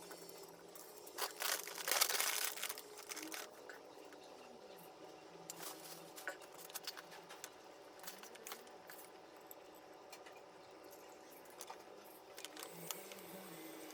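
Crinkling and rustling with scattered small clicks and taps, loudest in a burst about two seconds in.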